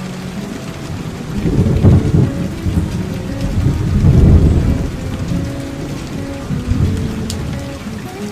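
Rain sound effect, steady rainfall with two low rolls of thunder swelling up about two and four seconds in, over a soft guitar melody.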